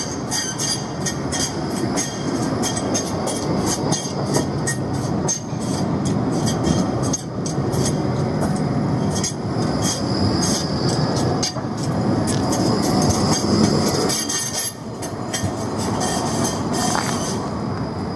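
Škoda ForCity articulated low-floor tram moving slowly round the tight curve of a terminus loop: a steady rumble of wheels on rail, a scatter of sharp clicks, and a high wheel squeal on the curve in the middle.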